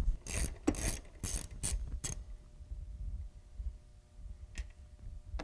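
Ratchet wrench clicking in a quick run of strokes for about two seconds, then one more click near the end, as the fasteners at the top of a car's front strut are worked loose.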